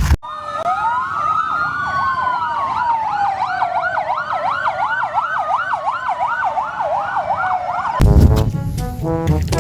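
Emergency sirens, a fast yelp of about three sweeps a second overlapping a slower rising and falling wail. Music with brass cuts back in near the end.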